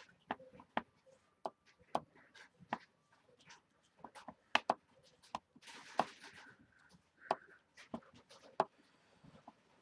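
Clear acrylic stamp block tapped onto an ink pad and pressed onto cardstock over and over: a string of irregular sharp taps and clicks, with a short rustling scuff about six seconds in.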